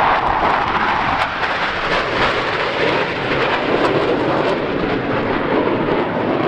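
Jet noise from a military jet making a low pass, a steady loud rush whose pitch sinks as the aircraft goes by.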